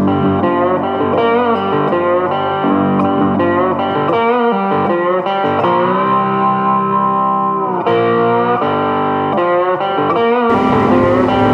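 Background music led by a guitar, its notes bending, with one long held note around the middle. A steady hiss joins near the end.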